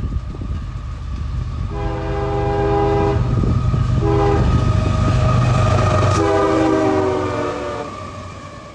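Diesel freight locomotive sounding its multi-chime air horn for a grade crossing, long, short, long, over the low rumble of the engines and train as it comes up and passes, the rumble fading near the end.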